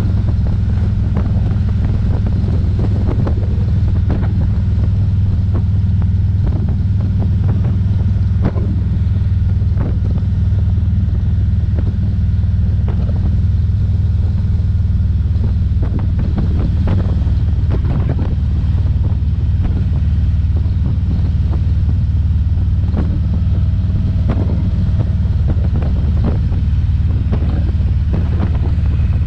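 Cruiser motorcycle engine running steadily at an even cruising speed, heard from the rider's seat, with wind buffeting the microphone in short gusts.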